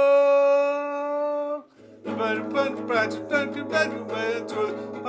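Rock band music: a long held note ends about a second and a half in, and after a brief gap the band comes back in with fast, driving guitar strumming over a bass line.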